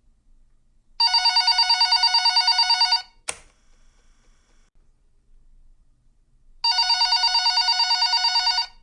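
Telephone bell ringing in two rings of about two seconds each, a fast trill with a pause of about three and a half seconds between them. A sharp click comes just after the first ring.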